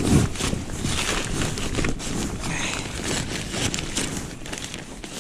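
Nylon tent fabric rustling and scraping on ice as gloved hands pull down and hold a pop-up tent's corner, with irregular clicks and knocks. A low rumble of wind on the microphone runs underneath and drops away at the end.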